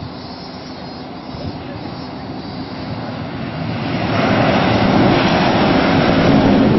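L0 series maglev train passing at high speed, its rush of air noise swelling from about three seconds in and staying at its loudest through the second half as the train goes by.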